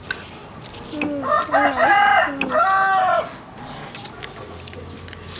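A rooster crowing once, a held call in several parts lasting about two seconds, starting about a second in. Spoons click now and then against plates.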